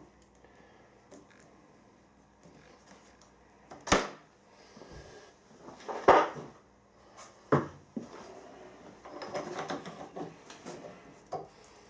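Metal tool-changing clinks and knocks as a cutter is loosened with an Allen key, pulled from a milling-machine boring head and a bigger cutter fitted. There are three sharp knocks about four, six and seven and a half seconds in, the one near six seconds the loudest, then softer handling noise.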